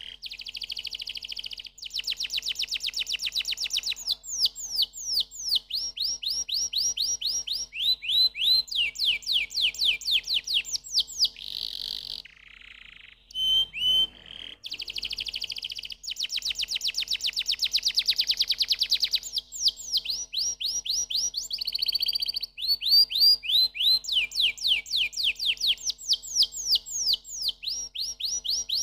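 Domestic canary singing: a long song of fast trills and rolls alternating with phrases of repeated downward-sweeping notes, broken by a brief pause about twelve seconds in.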